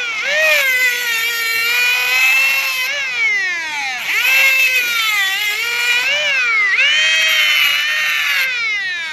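Small DC motor of a mini cordless angle grinder whining at high speed while its abrasive disc grinds a thin steel pin. The pitch sags several times as the motor is loaded and climbs back as the load eases.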